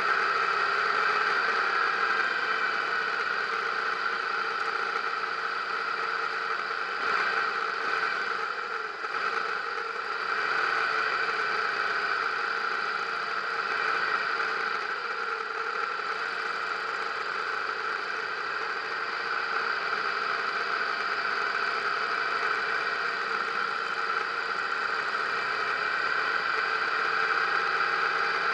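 Harley-Davidson motorcycle engine running steadily at low cruising speed, with other motorcycles close by, heard through a helmet-mounted camera.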